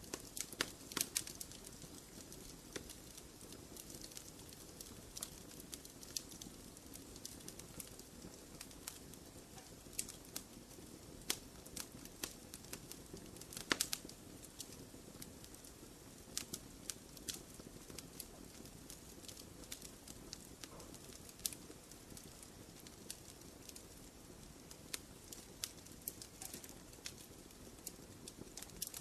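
Wood fire in a fireplace crackling: a soft steady hiss of flames with irregular sharp pops and snaps, a quick cluster about a second in and the loudest pop about halfway through.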